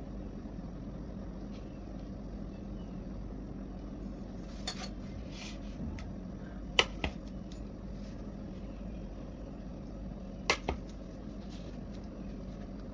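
Steady low hum with a few short sharp clicks or knocks, the loudest about halfway through and another pair near the three-quarter mark.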